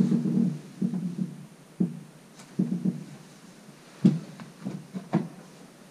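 Wooden walking sticks knocking and clattering against one another as one is set back into a rack of sticks: a series of dull knocks, with two sharper clacks about four and five seconds in.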